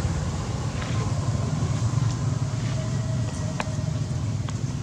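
Steady low rumble of outdoor background noise, with faint thin whistle-like tones in the first few seconds and one sharp click about three and a half seconds in.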